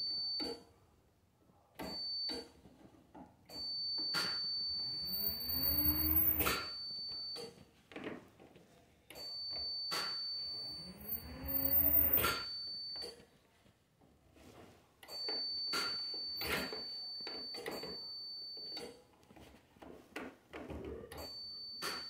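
Stair lift's electric motor starting up three times with a rising whine and cutting out after a second or two with a click, while a steady high beep sounds in stretches. It keeps starting and stopping, which the riders put down to the rider being over its weight limit.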